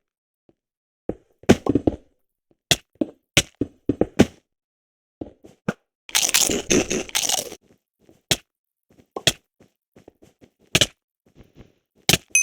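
Logitech G213 Prodigy Mech-Dome (membrane) gaming keyboard being struck: scattered single key clacks, irregularly spaced, with a dense flurry of clatter lasting over a second about six seconds in.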